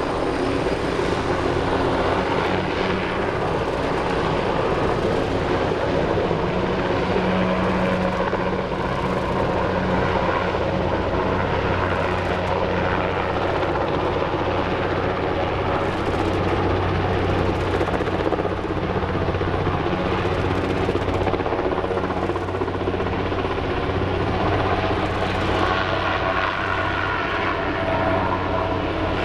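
Sikorsky helicopter in flight overhead with a sling load: its rotor and engine are heard steadily throughout.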